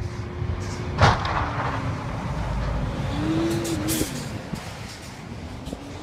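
Tractor-trailer truck passing on a snowy highway, its engine and tyre noise swelling and then fading, with a sharp bang about a second in.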